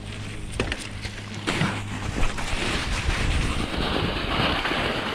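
Mountain bike riding downhill: wind rushing over the microphone together with tyres rolling over dirt and snow, with a few clicks and knocks from the bike at first. The rush grows louder about a second and a half in and stays steady.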